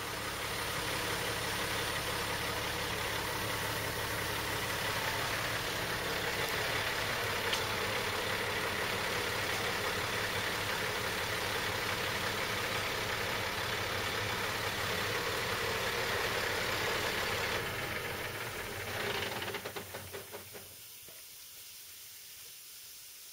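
Diesel engine of a milk tanker truck running steadily while the truck is moved over slowly. About twenty seconds in there is a brief louder patch, then the sound drops away to much quieter.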